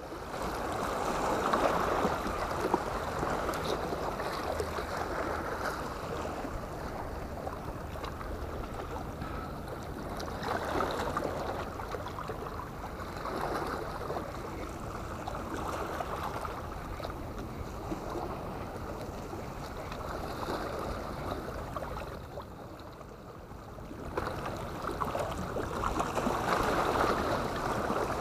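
Seawater washing against the boulders of a rock breakwater: a steady sloshing that swells and eases every few seconds.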